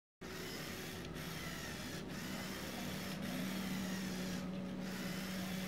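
LEGO Technic model's electric motor and gear train running: a steady whirring hum with a scraping rasp, starting suddenly about a fifth of a second in, with brief dips in the rasp about once a second.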